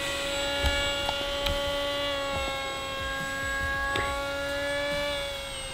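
Electric motor and propeller of a Wing Wing Z-84 foam delta-wing RC plane whining steadily in flight, with a slight drop in pitch near the end.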